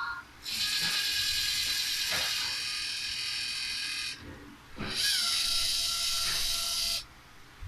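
LEGO EV3 motors and Technic gearing driving the CNC plotter's axes to their end positions during zeroing. There are two runs of high-pitched gear whine: the first lasts about three and a half seconds, and after a short pause a second lasts about two seconds.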